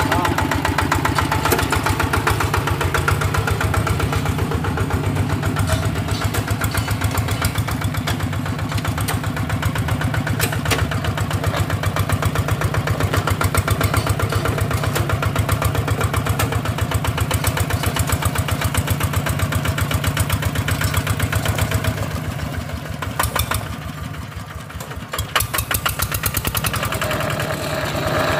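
Single-cylinder diesel engine of a two-wheel hand tractor running as it is driven, with a steady rapid chugging. It goes quieter for a few seconds near the end, then picks up again.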